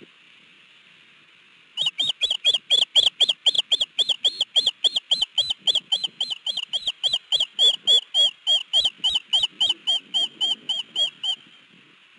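Osprey alarm calling: a rapid run of sharp, high whistled chirps, about four or five a second, starting about two seconds in and stopping just before the end. A steady rush of river rapids runs underneath.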